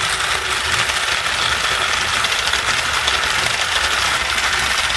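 Battery-powered Trackmaster 2 toy train motors and gearboxes whirring and rattling steadily, two engines pushing against each other on plastic track.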